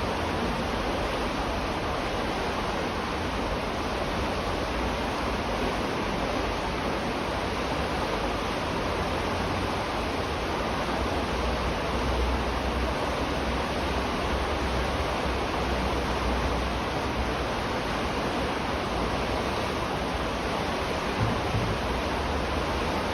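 River water rushing in a steady, unbroken wash, heard from beneath a bridge. There is one brief low thud near the end.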